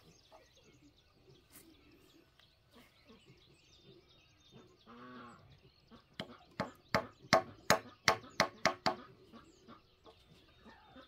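A short animal call about halfway through, then a quick run of about ten sharp knocks on a wooden plank, roughly three a second, as something is tapped into the end of the plank.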